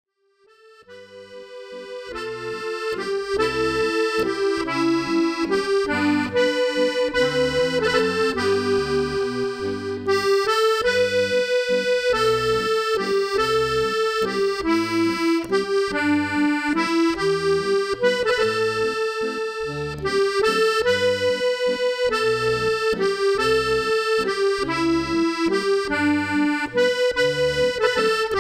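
Solo accordion playing a Scottish tune: a right-hand melody over a steady left-hand bass and chord accompaniment on the beat. It swells up to full volume over the first three seconds or so.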